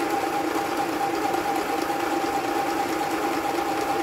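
Mini portable electric sewing machine running steadily, its small motor driving the needle through fabric with a constant hum.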